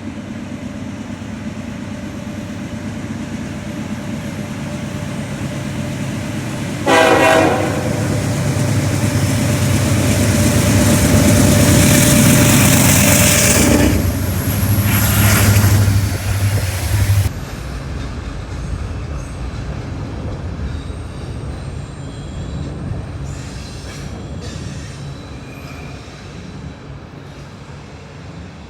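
A train passing: a rumble builds, the horn sounds sharply about seven seconds in, and the train is loudest a little before halfway. The sound drops suddenly soon after and then fades away.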